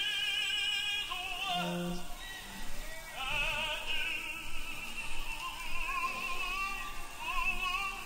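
Background music: a singer holding long notes with a wide vibrato.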